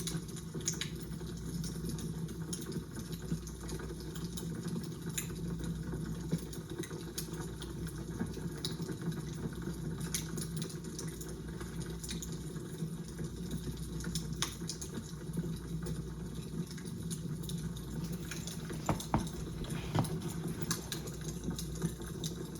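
Crackling fire: a steady low rumble with scattered, irregular pops and snaps, a few sharper ones near the end.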